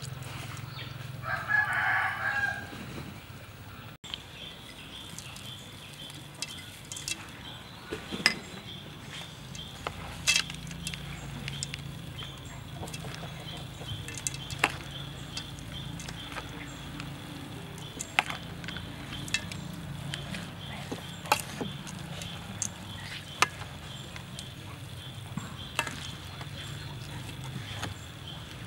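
A rooster crows once, about a second in. After it, sharp scattered clicks and taps of a spoon and chopsticks against a stainless steel bowl as a noodle salad is tossed, over a steady low hum.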